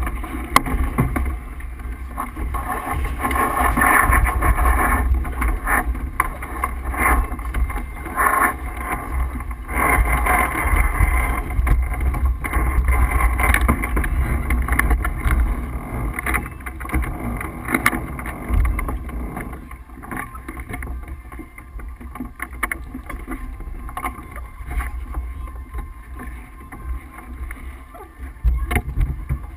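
Wind buffeting the microphone aboard a sailboat under way, a steady low rumble, with a rushing noise of water and boat that swells and eases, louder in the first half.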